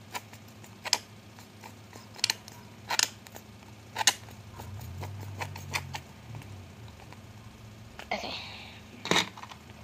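Irregular sharp plastic clicks and handling noise from a plastic school glue pen being squeezed hard by hand to force the glue out, with a faint low hum in the middle.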